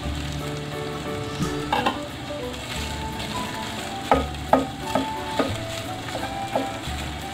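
Leftover rice and longganisa sizzling in a hot pan while a spatula stirs and scrapes through them, the spatula knocking against the pan once early and several times in quick succession in the second half.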